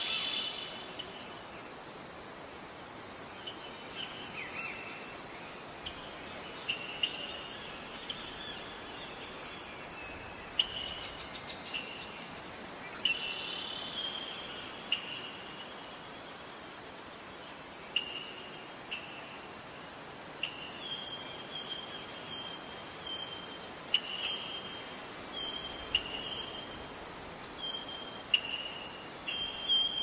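A steady, high-pitched insect chorus over the even rushing hiss of a stream. Short, high bird chirps come through it now and then, more often in the second half, with a few sharp ticks.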